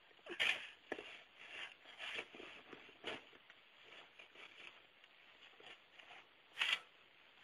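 Irregular crunches and scuffs in snow, several in quick succession over the first three seconds, then scattered quieter ones and one loud crunch near the end.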